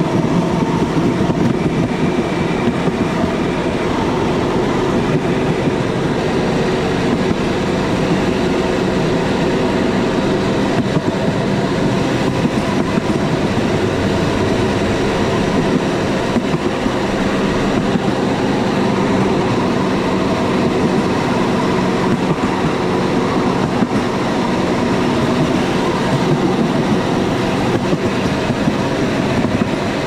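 Motorbike-powered rail cart (a San Cipriano 'brujita') riding along the railway track: a steady engine drone mixed with the rumble and clatter of wheels on the rails.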